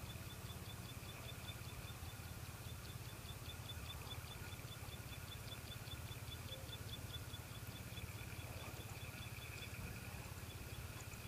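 Insects chirping: a rapid, evenly repeated high pip over a steady high buzz, with a low steady rumble underneath.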